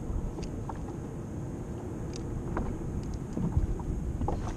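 Wind buffeting the microphone and water against a kayak's hull, a steady low rumble, with scattered small clicks and taps from the fishing rod and tackle being handled.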